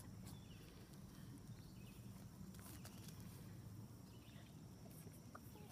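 Near silence: a faint steady low hum with a few light scattered taps and a brief faint chirp near the end.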